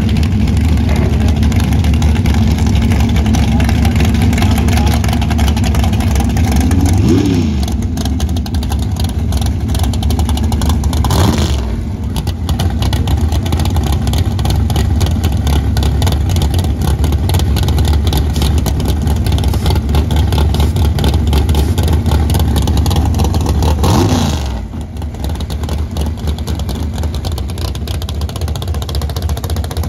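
Dragster engine running loudly at idle, blipped three times in quick rise-and-fall revs: about seven seconds in, about eleven seconds in, and near twenty-four seconds.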